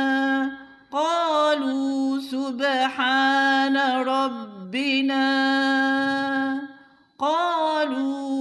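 A woman's voice reciting the Quran in melodic tajweed chant, holding long notes with slight ornaments. There are short breaths between phrases about a second in and near the end.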